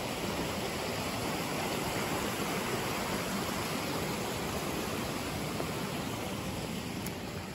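Mountain stream rushing over small waterfalls: a steady, even rush of water.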